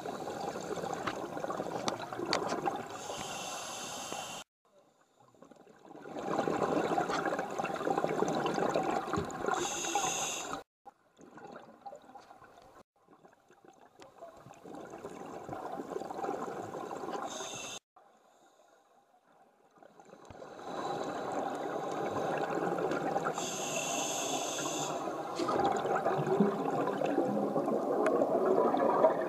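Scuba diver breathing through a regulator underwater: long bubbling exhalations recur about every six to seven seconds, with brief hisses and short quiet gaps between them.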